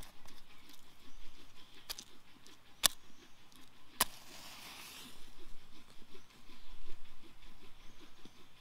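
A match struck three times; the third strike catches and flares with a short hiss.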